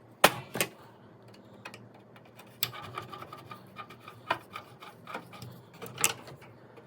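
Hand-tool work on the steel windshield frame: two sharp clicks, then irregular scraping and rubbing with light ticks, and a sharper knock near the end.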